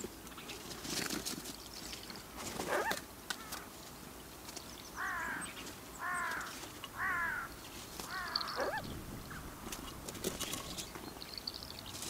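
A crow cawing four times in a row, about a second apart. A few sharp clicks and faint high small-bird chirps come around the calls.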